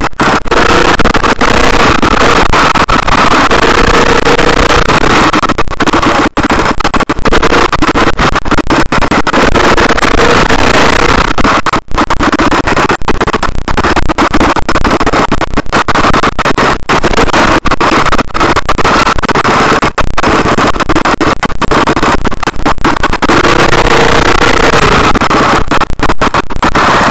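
KTM off-road motorcycle engine running under throttle while riding up a dirt slope, very loud at the bike-mounted camera, with brief dips in level a few times as the throttle comes off.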